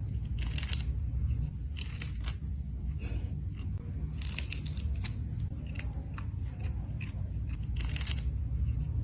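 A cat chewing fish with irregular crisp crunches, several a second, over a steady low hum.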